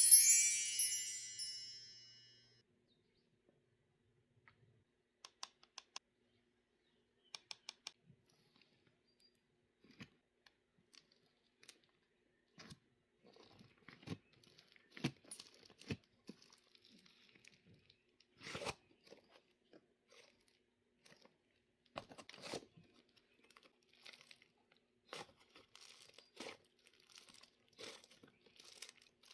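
A bright chime rings at the start and fades over about two seconds. After a near-quiet stretch with a few faint clicks, butter slime being pressed and stretched gives soft, irregular crackles and squishy pops from about ten seconds in.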